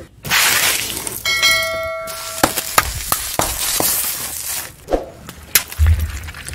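A car tyre rolling over and crushing small objects, with a run of cracks, crunches and clicks. About a second in, a bell chime rings out for about a second over the crushing, and near the end comes a low thump.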